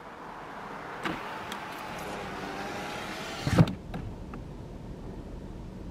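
Lexus IS250 electric window motor running for about three and a half seconds, with a small click about a second in, ending in a thump as the glass reaches the end of its travel. The V6 engine idles underneath.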